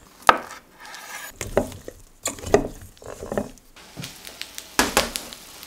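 Cooking sounds: chopsticks stirring potatoes in a steel pot and knocking against it, then a cast-iron pan of roasted potatoes, all as a series of sharp knocks and clinks with a sizzling hiss between them.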